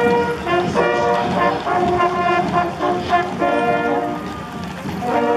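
Brass band music playing: held brass notes in short phrases, softer for a moment around four seconds in.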